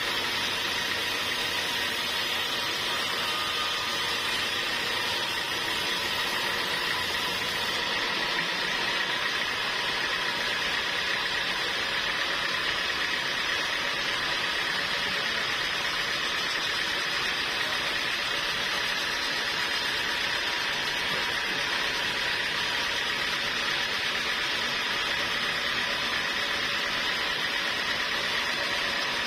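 Sawmill machinery running steadily: a continuous mechanical noise with a high steady tone over it, unchanging throughout.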